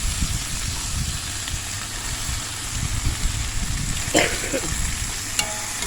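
Chicken sizzling steadily in a cast iron skillet over a gasoline Coleman camp stove, a constant hiss with a low rumble underneath. Two brief pitched sounds cut in, about four seconds in and again near the end.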